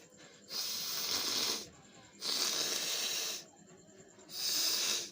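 A person blowing their nose hard three times, each a hissing blast of about a second.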